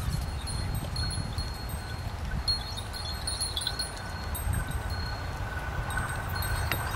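Diesel locomotive approaching with a low rumble and a steady whine that grows louder near the end, with short high chime-like tones over it.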